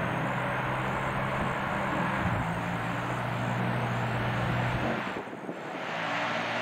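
Off-road race truck's engine running hard as the truck comes up the dirt track, with a brief easing of the drone about five seconds in.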